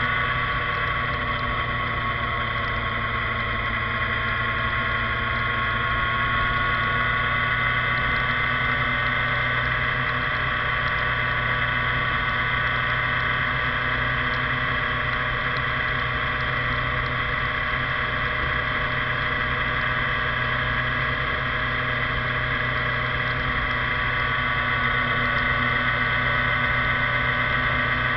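Yamaha FZ6 motorcycle's inline-four engine running at a steady cruising speed, its pitch holding nearly constant, over a steady rush of road noise.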